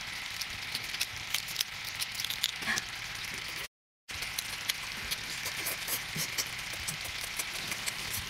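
Mukbang eating sounds from a large cooked prawn: the shell being pulled apart and crunched and the meat chewed, a dense run of small crackles and clicks. The sound cuts out for a moment about four seconds in.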